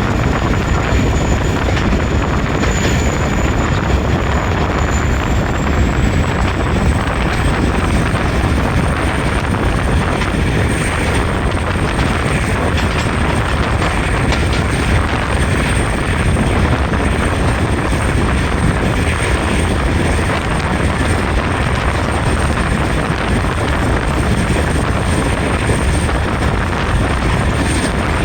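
Loud, steady running noise of a vehicle in motion, with a faint high whine that rises slightly in pitch about six seconds in and then holds.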